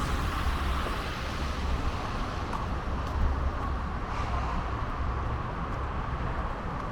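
Steady city street ambience: a low rumble of traffic with no single event standing out.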